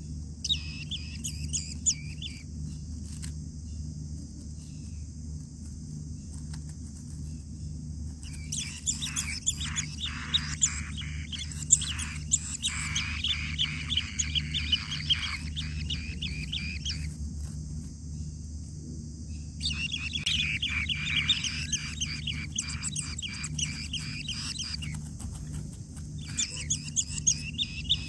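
Asian bee-eater nestlings chirping: rapid high-pitched chirps in several bursts, the longest about a third of the way in, separated by pauses of a few seconds. A steady low hum runs underneath.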